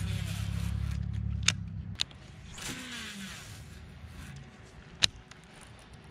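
A low rumble for the first two seconds, then a baitcasting reel's spool whirring briefly with a hiss that falls in pitch as a lure is cast out, and a few sharp clicks.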